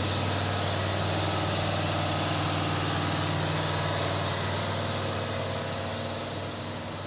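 Logging truck's engine running steadily under load with a low, even hum, growing a little quieter over the last couple of seconds.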